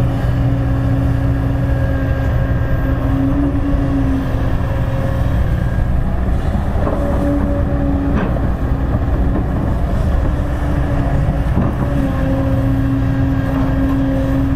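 Kobelco hydraulic excavator's diesel engine running steadily while digging and loading soil into a dump truck, with a pitched whine that comes and goes as the hydraulics work. A few short knocks sound around the middle.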